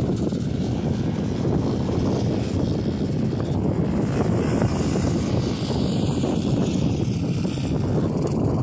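Wind blowing hard across the microphone: a steady, low rumble.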